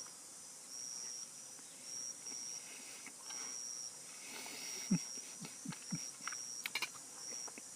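Insects chirping outdoors in repeated high-pitched trills, each lasting about half a second to a second with short gaps between them. A few faint clicks and soft knocks come in the second half.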